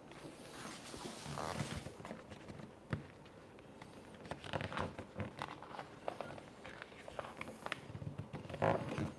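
Vinyl wrap film being handled and smoothed onto a mini fridge: a stretch of rustling and sliding in the first two seconds, a sharp tap about three seconds in, then scattered crinkles and taps.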